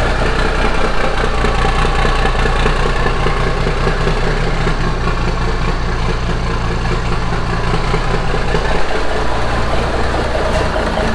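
International 9370 semi truck's diesel engine idling steadily, with no mufflers fitted, so it exhausts straight out the sides.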